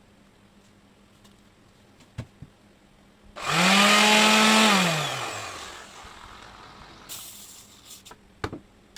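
Orbital sander with a newly replaced pad, switched on briefly about three seconds in. Its motor spins up, runs at full speed for about a second and a half, then winds down with a falling pitch over about a second. A few light clicks come before and after.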